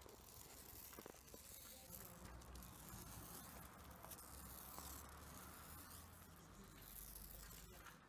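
Near silence: faint steady background noise, with a few faint ticks about a second in.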